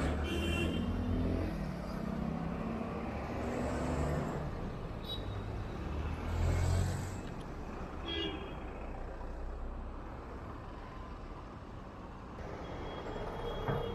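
Road traffic: a bus's engine rumbles past at the start, then other vehicles pass with the engine noise swelling again briefly a few seconds later before settling into a steadier traffic hum.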